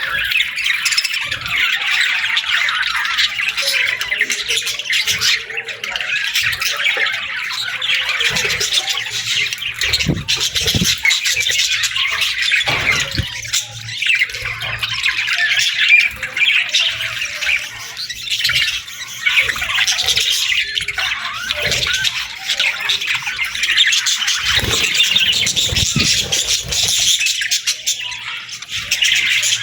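Budgerigars chattering: a dense, continuous stream of overlapping chirps, warbles and squawks.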